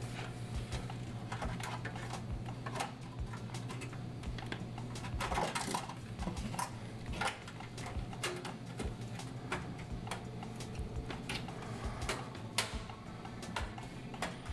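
Irregular clicks, taps and light clatter of a motherboard box and its packaging being opened and handled, with a steady low hum underneath.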